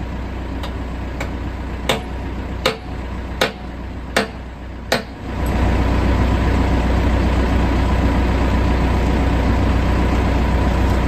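Backhoe diesel engine idling while five sharp hammer blows land about three-quarters of a second apart, likely knocking at a bucket pin. The engine gets louder about five seconds in and then runs steadily.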